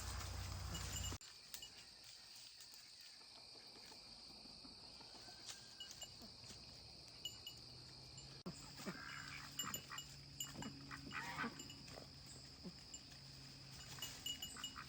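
Faint goat bleats, a handful of short calls in the second half, over a quiet background with a steady high-pitched hum. A louder low rumble stops abruptly about a second in.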